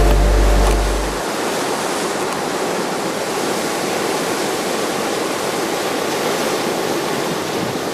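Sea surf breaking and washing in to the shore, a steady rushing of water. Low music notes carry over into the first second and then stop.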